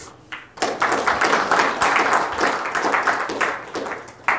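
Audience applauding, starting about half a second in and going on as a dense, steady clapping.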